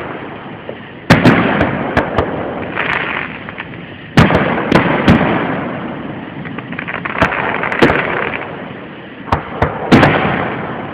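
Fireworks going off: a series of sharp bangs, often two or three in quick succession, every second or two, each trailing off in a rolling echo.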